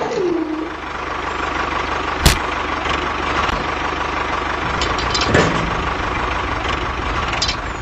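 Small electric motor of a DIY model tractor whining, its pitch dropping and dying away within the first second, then a steady mechanical whirring with two sharp clicks, one a little over two seconds in and one about five seconds in.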